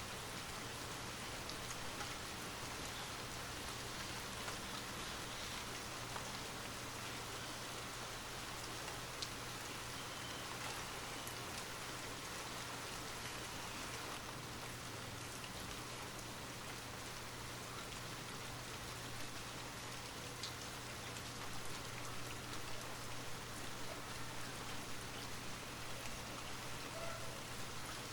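Light rain falling steadily, a soft even hiss with scattered individual drop ticks, over a low steady hum.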